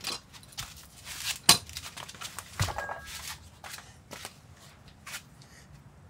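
Light clicks, rattles and rustling as a brake pad and its packaging are handled, with one sharp click about a second and a half in.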